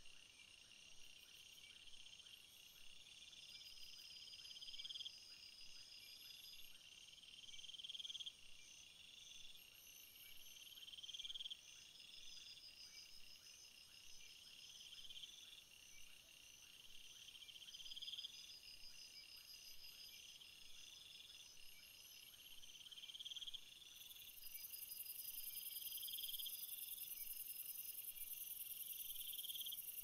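Faint crickets chirping in a chorus of high trills. The strongest trill comes in phrases that grow louder for a second or two and stop sharply, repeating every two to three seconds. A higher, steady shrill joins near the end.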